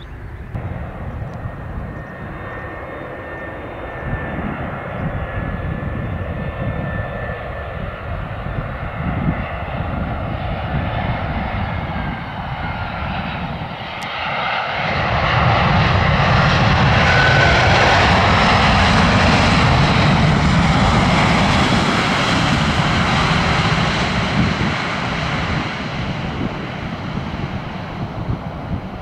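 Jet airliner engines: a departing jet climbing away with a steady engine noise and a faint whine. Then, about halfway through, an easyJet Airbus A320-family jet on the runway comes in much louder, its engine roar peaking for several seconds before easing off.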